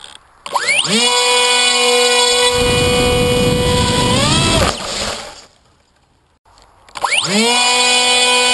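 Bixler model plane's electric pusher motor and propeller throttling up sharply to a steady high whine, with air rushing past. The whine rises briefly and cuts off about four seconds in, leaving the plane gliding almost silently. About seven seconds in, the motor spins up again to the same steady whine.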